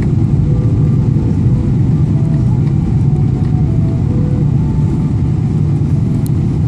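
Boeing 777-300ER cabin noise on final approach: a loud, steady low rumble from the GE90 engines and the airflow, with faint higher tones drifting in and out.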